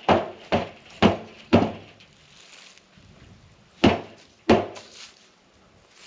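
Six hard knocks on the tipped-over deer feeder, striking it to drive out the wasps nesting inside. Four come about half a second apart, then two more after a pause, each ringing briefly.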